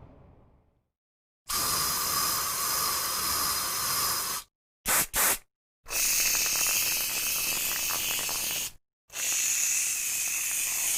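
Several separate bursts of steady hissing that start and stop abruptly. There is a hiss of about three seconds, two short puffs about five seconds in, then two more hisses of about three and two seconds, each with a faint whistle in it. The start is the fading tail of a low rumble.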